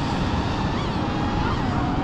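An FPV freestyle quadcopter's motors whining, their pitch sliding up and down as the throttle changes, dipping near the end. A heavy, steady wind rumble on the microphone sits underneath and is the loudest part.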